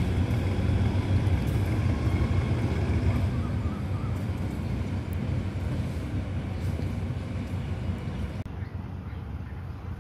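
Diesel locomotive's engine rumbling low and steady as it pulls away down the track, slowly fading. A little before the end the sound cuts abruptly to a quieter, thinner background.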